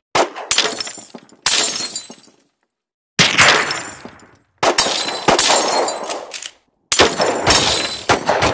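Glass-shattering sound effects: about eight sharp cracks, mostly in pairs, each followed by a tinkling tail of falling shards that fades out.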